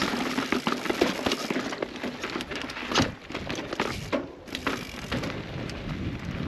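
Transition Spire mountain bike riding down a dirt trail: tyres crunching over dirt and stones amid a dense crackle of small clicks and rattles from the bike, with a louder knock about three seconds in.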